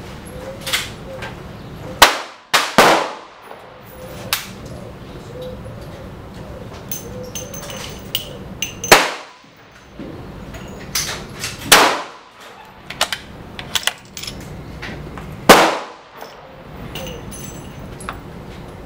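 A .223 Remington 700 bolt-action rifle fires three loud shots, about seven seconds apart. Between them come other sharp cracks and metallic clacks, including the bolt being worked to reload.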